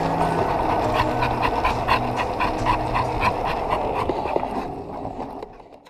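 American Staffordshire terrier panting rapidly, about four breaths a second, as it runs pulling a skateboard, over the steady rumble of skateboard wheels rolling on rough asphalt. The sound fades out near the end.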